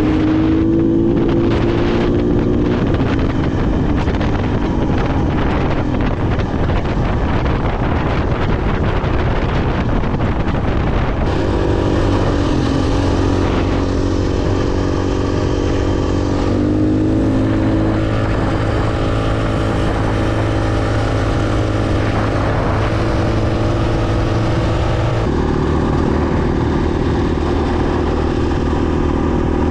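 Adventure motorcycle engine running while riding, with wind noise on the microphone. The engine pitch shifts through the stretch, and the sound changes abruptly about 11 and 25 seconds in.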